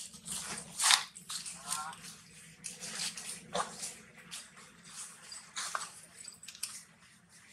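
Infant long-tailed macaque suckling at its mother's breast: a run of short wet clicks and smacks, with a few brief faint squeaks.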